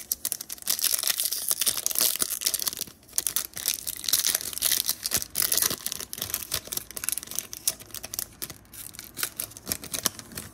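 Foil Yu-Gi-Oh! booster pack wrapper being torn open and crinkled by hand, a dense crackling rustle for the first six seconds or so, then lighter, scattered crinkles as the cards are drawn out.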